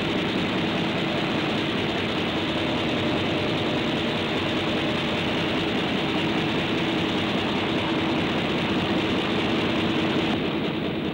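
Steady mechanical rumble with a faint low hum: a cartoon sound effect of the refrigeration plant keeping the giant monster's ice block frozen.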